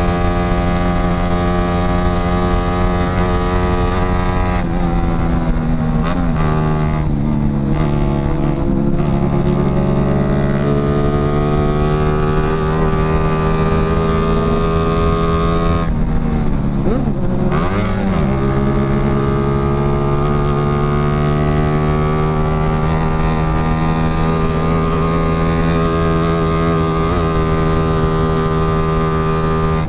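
Yamaha Jupiter Z underbone motorcycle's single-cylinder four-stroke engine heard from the rider's seat while riding at steady cruising revs. Twice the revs drop and climb back, a few seconds in and again about halfway, as with a gear change or a lift of the throttle.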